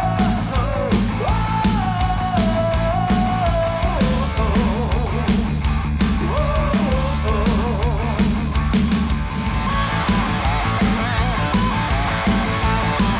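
Rock music: a lead guitar melody with bends and wavering vibrato over a steady drum beat and bass.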